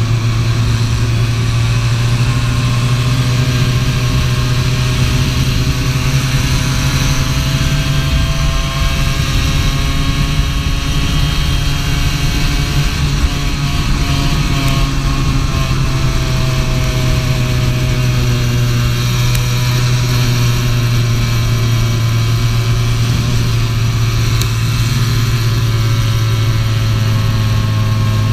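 Onboard sound of an 80cc racing kart engine running hard at speed, loud and steady, its pitch rising and falling gently as the kart brakes and accelerates through the corners.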